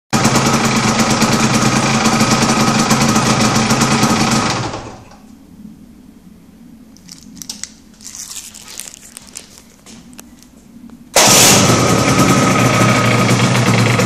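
Aprilia RS125's two-stroke single-cylinder engine idling, then dying out about four and a half seconds in as the remote-controlled anti-theft relay cuts the bike's power. A few faint clicks follow in the quiet, then about eleven seconds in the engine is started again and idles steadily.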